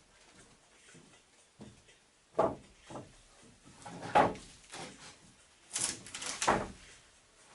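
A series of knocks and clattering bumps of hard objects being handled, the loudest about two and a half and four seconds in, with a rattling cluster around six seconds.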